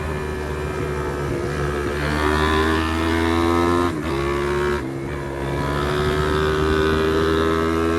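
Pit bike's single-cylinder four-stroke engine running hard under way: its note climbs, drops sharply twice around the middle as the throttle is eased or a gear is changed, then climbs again.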